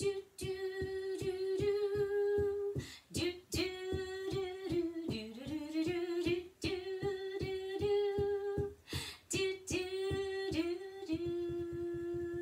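A woman sings a wordless, children's-song melody ("dee-da-dum", "do-do-do") while keeping a steady beat of about four taps a second with wooden spoons on a carpeted floor. Near the end she holds one long hummed note as the taps speed up into a quick roll.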